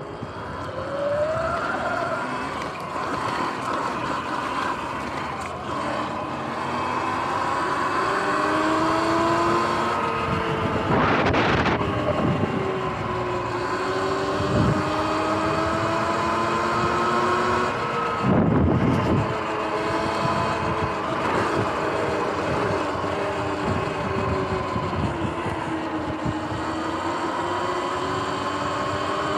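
Sur-Ron X electric dirt bike riding: the motor and drivetrain whine, several tones that rise and fall together with speed, over wind rushing on the microphone. It picks up about a second in as the bike pulls away, and twice a brief louder rush of noise sweeps over it.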